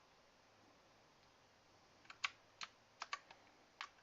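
Keys of a Redragon K551 mechanical keyboard being pressed: quiet for about two seconds, then around seven separate, irregularly spaced clacks.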